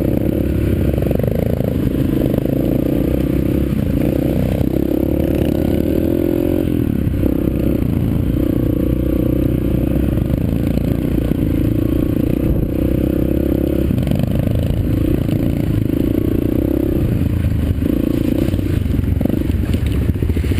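Yamaha TT-R125's air-cooled four-stroke single-cylinder engine running on a trail ride, its note rising and falling every few seconds with the throttle.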